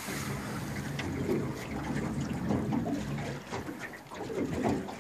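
River water lapping and gurgling against a metal boat hull as the boat moves on the current.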